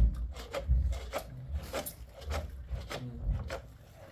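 Repeated, irregular scraping and rubbing strokes against a hard surface, about three a second, with dull low knocks under them. The strokes are strongest at the start and thin out near the end.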